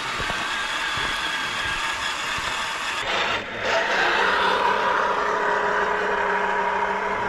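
Electric motor and gearbox of a scale RC crawler whining steadily under a bed of rattle and rustle; the pitch jumps to a new steady whine after a brief break about halfway through.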